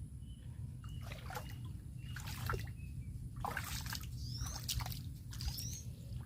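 Water splashing and trickling in irregular small bursts over a steady low rumble, with a short rising chirp twice in the second half.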